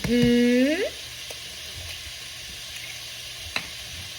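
Sausage frying in a pan, a steady sizzling hiss, with a couple of faint clicks. In the first second a voice holds one note that rises in pitch at its end.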